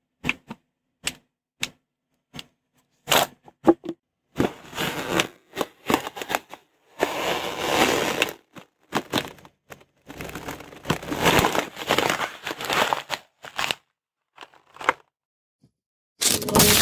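Objects crushed under a slowly rolling car tyre. First a few sharp isolated cracks, then long stretches of crunching and crackling as plastic and cardboard packaging give way. A loud crunch comes near the end.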